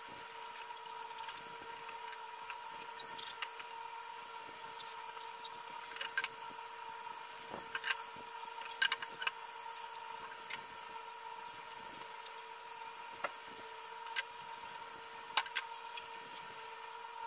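Hard plastic toy parts clicking and knocking as they are handled and fitted together by hand, a scattered series of sharp taps, most of them in the second half, over a steady low hum.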